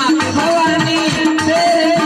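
North Indian folk stage music: a tabla-like hand drum plays a rhythm of low strokes that bend in pitch, under a held melodic line.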